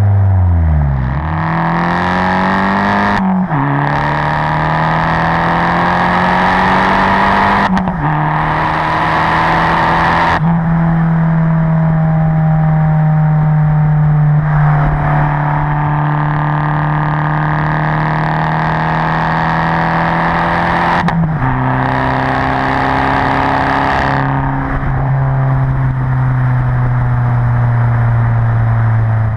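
Turbocharged Abarth 500 esseesse four-cylinder engine with an aftermarket exhaust, heard from inside the cabin while driving. The revs dip and then climb at the start. The pitch drops sharply at three upshifts, a few seconds in, at about eight seconds and at about twenty-one seconds, and holds a fairly steady cruising note between them.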